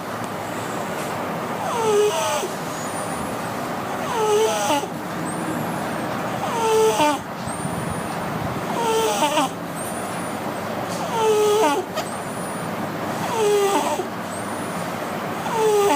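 A cat snoring with a wheeze: each breath carries a short, squeaky whistle. The breaths come evenly, about one every two and a half seconds.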